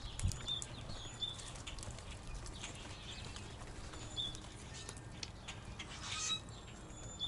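Wild birds calling: a few short, high chirps and scattered small clicks, with one louder, harsher call about six seconds in.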